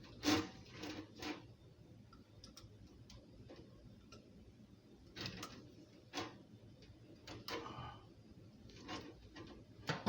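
Light, irregular clicks and knocks of faucet parts and fittings being handled and fitted together, about a dozen scattered taps.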